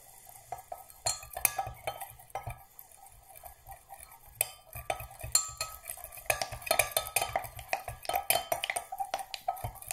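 A wooden stick stirring liquid soft-plastic mix in a glass measuring jug, tapping and scraping against the glass in irregular clinks that grow busier about halfway through.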